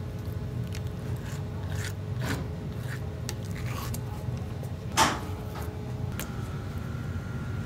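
Knife scraping and rubbing along fish skin against a cutting board as fillets are skinned: short, scattered scrapes, with one louder stroke about five seconds in, over a steady low kitchen hum.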